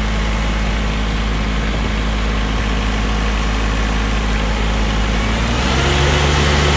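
Iseki GEAS 29 tractor's diesel engine running steadily; about five and a half seconds in, its speed steps up a little and it runs slightly louder.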